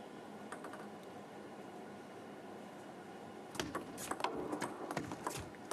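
Table tennis rally: the celluloid ball clicks sharply off bats and table in quick succession, starting about three and a half seconds in after a stretch of low, steady background hum.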